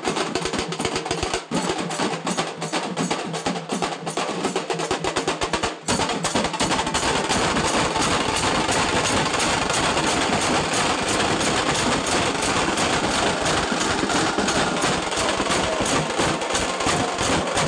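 Fast, dense drumming with rapid strokes. It breaks off briefly about six seconds in, then comes back fuller and steadier.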